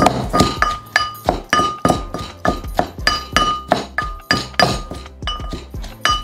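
Garlic cloves being pounded coarsely with a pestle in a heavy mortar: steady strokes about three a second, each a sharp clink with a short ring.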